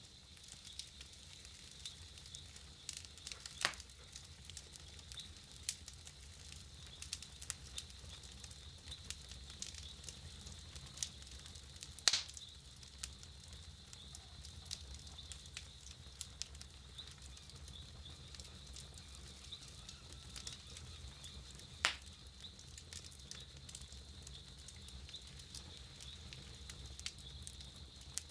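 Campfire crackling softly, with scattered small snaps and three louder pops of burning wood spread across the stretch.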